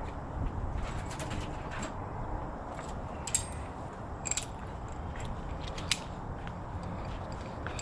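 Metal tools and bicycle parts clinking as they are handled, with scattered sharp metallic clicks, the loudest a little past a third of the way in, over a low steady background noise.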